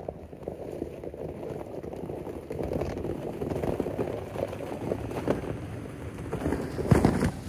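Toyota Tacoma pickup driving slowly through snow and slush, its tyres crunching and splashing in the wet ruts over the engine. It grows louder as it comes close, loudest about seven seconds in as it passes.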